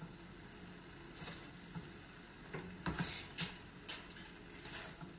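Silicone spatula stirring and turning fried rice in a stainless steel pan: soft, scattered scrapes and rustles, most of them in the second half, over a faint low hum.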